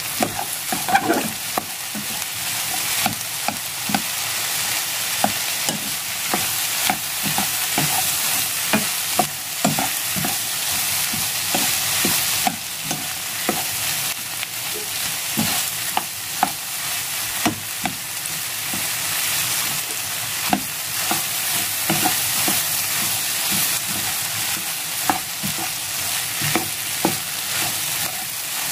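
Shredded cabbage, onion, egg and ham sizzling in a nonstick frying pan as they are stir-fried: a steady hiss with frequent, irregular clicks and taps of the stirring utensil against the pan.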